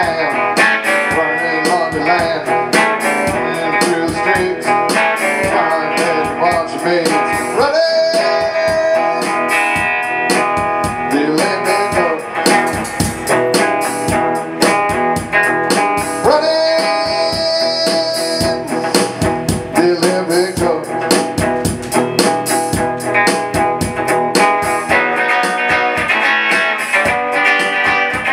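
Electric guitar played through an amplifier: a country-blues instrumental passage of strummed chords and single-note lines, with notes bent upward a couple of times.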